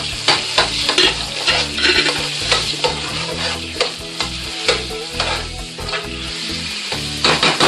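Tomato paste sizzling in hot olive oil in a caldero while a spoon stirs it, with frequent scrapes and taps of the spoon against the pot.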